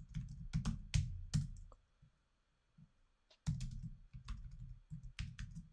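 Typing on a computer keyboard: two runs of quick keystrokes with a pause of about two seconds between them.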